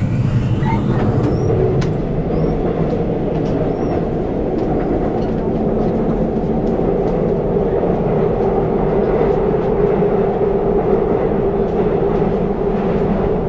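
Seoul Metro Line 2 subway train running between stations, heard from inside the carriage: a steady, loud rumble of wheels on rail with a hum, and a few faint clicks.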